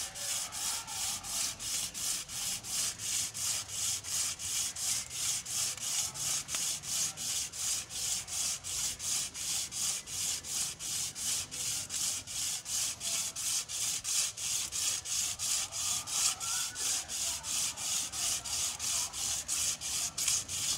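Rhythmic rubbing as a cord wrapped around an engine's crankshaft journal is pulled back and forth by hand to polish it, a steady hissing scrape at about three strokes a second.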